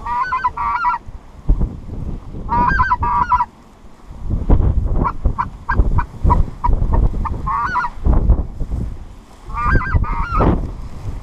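Goose honking in short clusters of two or three notes, repeated every couple of seconds. Strong wind buffets the microphone with a gusty low rumble.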